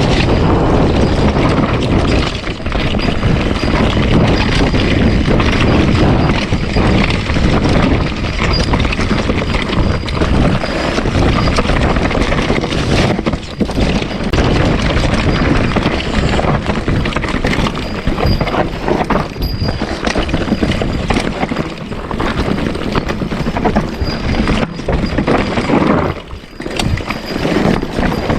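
Loud, rumbling wind buffeting the microphone, with handling and scuffing noise from a camera carried on the move.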